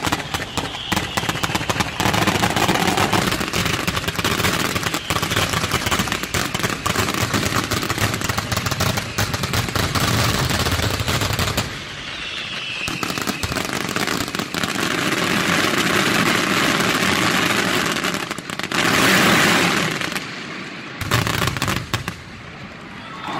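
Sanseverese-style fireworks battery firing its finale: a dense, rapid string of firecracker bangs like machine-gun fire. It drops back after about twelve seconds, with one last loud burst a few seconds before the end, then dies away.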